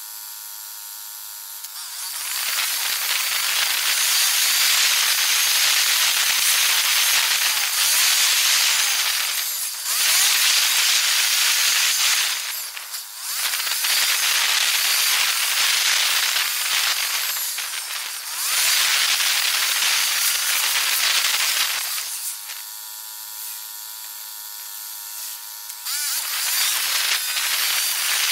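Wind noise on the microphone of a camera riding along a road, played back sped up ten times, giving a loud steady hiss. Twice it drops away for a few seconds, at the start and again near the end, leaving a faint high-pitched hum with several overtones.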